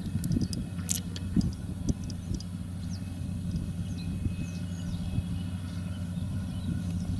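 Deutz-Fahr tractor's diesel engine running at a steady, even pace while it pulls a spreader across the field, with a few uneven low thumps in the first couple of seconds.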